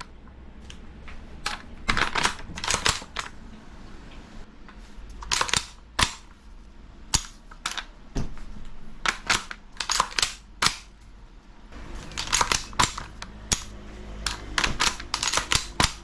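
King Arms BlackRain 9mm gas blowback airsoft carbine firing in short quick strings of sharp cracks, about three or four shots a second, with pauses between the strings.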